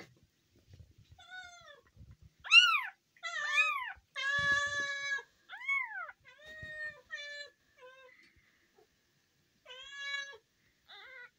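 Day-old newborn kitten mewing again and again in thin, high-pitched cries, about ten in all. The loudest comes about two and a half seconds in, and a longer, held cry follows a little after four seconds.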